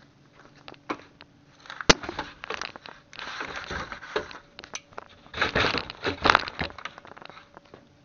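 Close handling noise: the camera's microphone rubbing and bumping against a jacket. There is a sharp knock about two seconds in, then two long stretches of crackly rustling, the second one louder.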